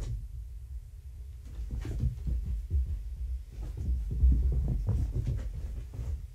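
Kittens scampering and pouncing on a carpeted floor and blanket: a run of irregular soft thumps and rustles, loudest about four seconds in as a kitten leaps over a sleeping person.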